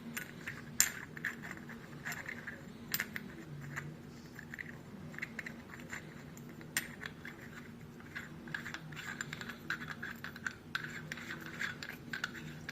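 A threaded fitting being screwed by hand into an oil catch can: intermittent scratching and scraping of metal threads with scattered light clicks.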